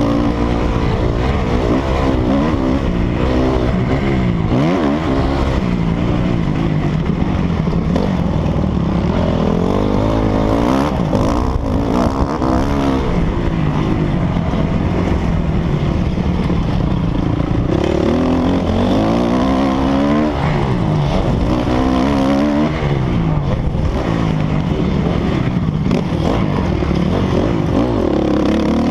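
Dirt bike engine revving hard, its pitch climbing and dropping again and again as the rider accelerates, shifts and backs off around the track.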